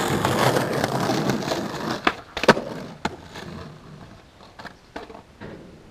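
Skateboard wheels rolling loudly over concrete. About two and a half seconds in come three sharp cracks of the board hitting the ground, the middle one loudest. Then the rolling fades away, with a couple of light clicks.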